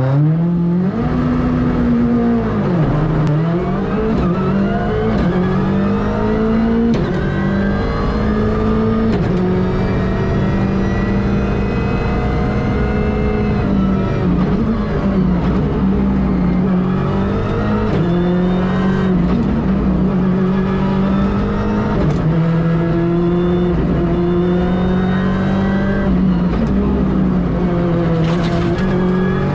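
Ford Fiesta R5 rally car's turbocharged 1.6-litre four-cylinder engine driven hard on a stage, revs climbing and dropping again and again through gear changes and lifts for bends, with a deep drop in revs about three seconds in. Heard from inside the cabin.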